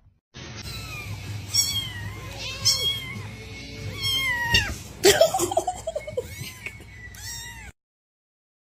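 A cat meowing again and again: a string of high meows that rise and fall in pitch, over a low steady hum. The sound cuts off suddenly near the end.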